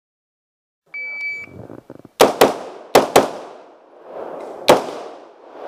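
A shot timer's start beep about a second in, then a string of AR-15 rifle shots, some in quick pairs, each followed by a short echo.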